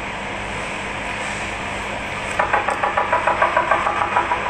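Quick run of about a dozen frog-like clicks, about six a second, made with a drinking glass. They start a little past halfway, last about two seconds, and sit over a steady background hiss.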